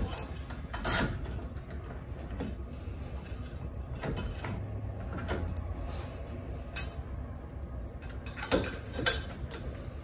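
Scattered clicks and knocks of the smart deadbolt's metal and plastic parts being handled and pressed into place against the door while lining them up, with one sharp click about seven seconds in and two more a couple of seconds later.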